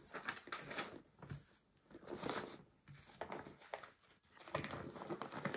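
Paper rustling and a fabric project bag being handled as a printed chart and a spiral-bound chart booklet are pulled out, in irregular bursts with a few small clicks.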